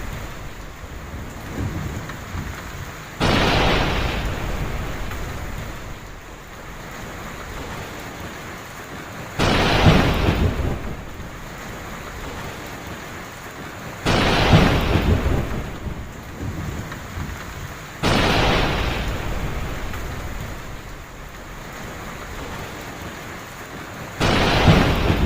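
Heavy rain falling steadily through a thunderstorm, with five thunder claps that hit suddenly and rumble away over several seconds, one every four to six seconds.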